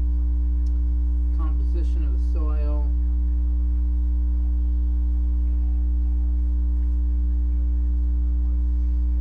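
Steady, loud low electrical mains hum with overtones, picked up by the recording chain. Two short, faint sounds come about one and a half and two and a half seconds in.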